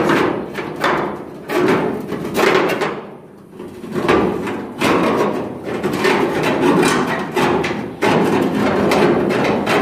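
Sheet metal banging and rattling in quick, irregular knocks as a cut-out steel panel piece is worked loose, with a short lull about three seconds in.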